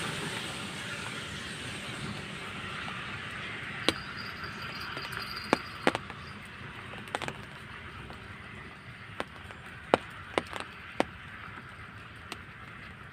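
Light rain falling, a steady hiss with a handful of sharp single taps scattered through it.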